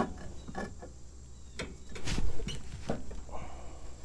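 Light scrapes, taps and knocks of a wooden block being wedged against a riding mower's steel blade under the cutting deck, with a louder knock about two seconds in.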